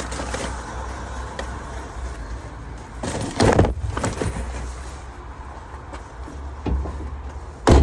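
Steady low outdoor rumble of wind and traffic, with a couple of knocks about three and a half seconds in and a sharp, loud slam near the end, like a van door being shut.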